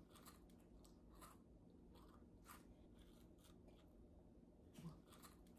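Faint chewing with soft crunches, roughly one or two a second, and a brief low hum near the end.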